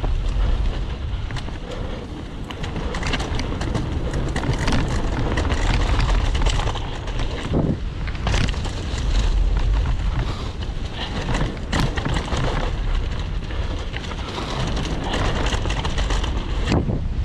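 Mountain bike descending a dirt forest trail strewn with dry leaves: tyres rolling over dirt and leaves, with frequent knocks and rattles from the bike over bumps and wind rumbling on the microphone.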